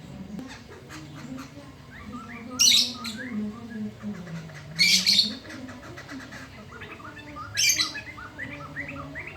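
Poksay mantel laughingthrush singing loudly: three harsh, screechy bursts about two and a half seconds apart, with quick series of short rising notes between them.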